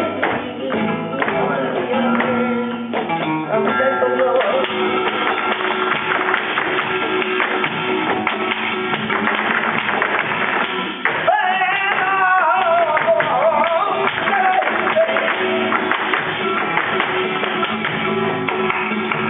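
Live flamenco music: dense, rhythmic guitar strumming, with a singer's wavering, ornamented vocal line coming in about halfway through.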